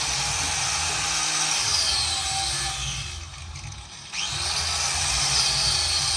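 Power grinder running on metal pipe as the pipes are cleaned up for welding. It eases off about three seconds in and picks up again about a second later.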